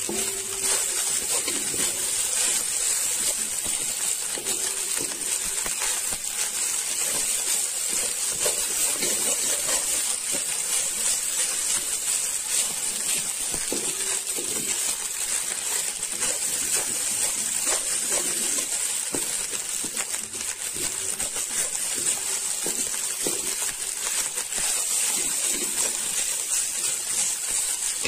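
Rice frying in a hot metal pan with a steady sizzling hiss, while a wooden spatula stirs and scrapes it, giving irregular scrapes and clicks against the pan.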